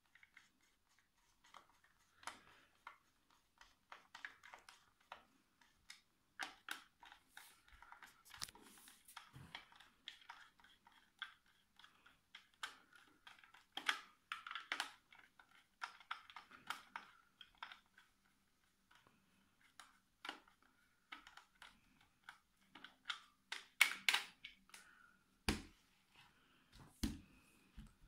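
Small screwdriver turning screws in the plastic battery cover of a toy robot, with light irregular clicks and scrapes of plastic being handled. Louder clicks and a knock come near the end.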